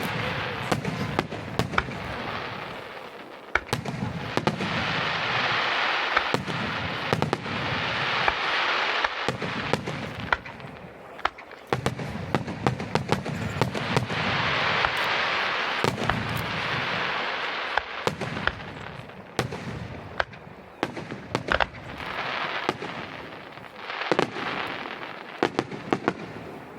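Aerial fireworks going off: many sharp bangs and crackles over swells of hissing that build and fade every few seconds.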